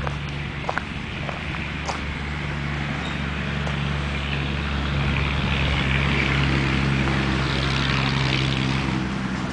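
A running engine's steady low hum, with a rushing noise that swells up in the second half and a few faint clicks near the start.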